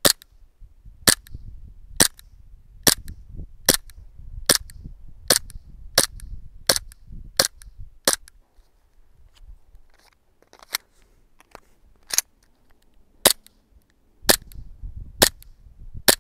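WE Glock 19 gas blowback airsoft pistol firing single shots, each a sharp crack of gas and slide cycling. About eleven shots come at a steady pace of roughly one every 0.8 seconds. After a short lull with a couple of fainter clicks, a few more shots follow.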